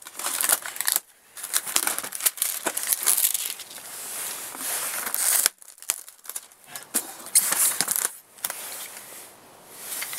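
Clear plastic wrap crinkling and tearing as it is pulled off a styrofoam packing tray, in irregular rustling bursts with short pauses.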